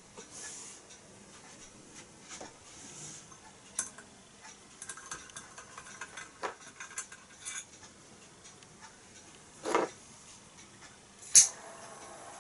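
Small metal clicks and knocks from a Meccano model steam engine's parts as they are handled, with a heavier knock just before 10 s. About 11 seconds in, a sharp click sounds as a handheld butane torch is lit, and then the torch flame hisses steadily.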